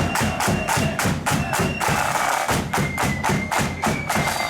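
Marching flute band playing on parade: snare and bass drums beating a fast, steady rhythm, with short high flute notes over the drumming.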